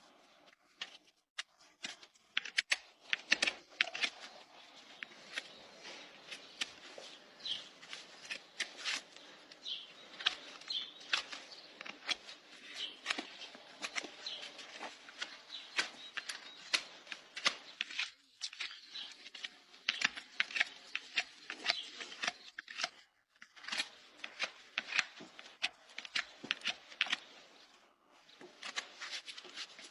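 A horse's hoof being trimmed: a rapid, irregular run of crisp clicks and scraping strokes as the trimming tools cut and pare the horn, broken off briefly a few times.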